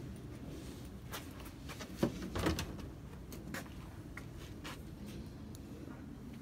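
Scattered light clicks and knocks over a steady low background, with two louder thumps about two seconds in, half a second apart.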